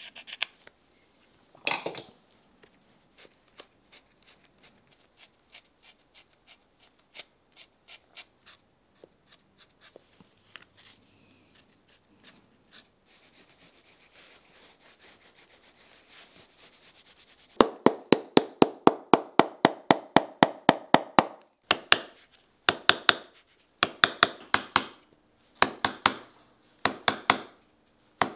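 Rapid light hammer taps on a metal shoemaking tool held against the leather welt of a boot, about eight a second for several seconds, then in short bursts. Before them, faint scraping and rubbing of hand work on the leather.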